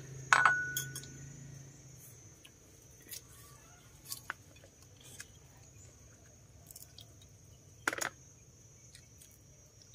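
Chopsticks and spoons clinking against porcelain bowls and plates while eating. One sharp ringing clink comes about half a second in, a few lighter taps follow, and a louder double clink comes about eight seconds in. A steady high-pitched tone runs underneath.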